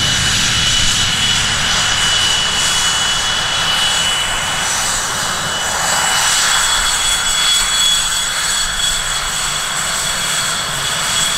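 A Boeing B-17 Flying Fortress's four radial piston engines running steadily as it rolls down the runway after landing, with a constant high whine riding over the engine roar. About halfway through, the whine steps up slightly in pitch.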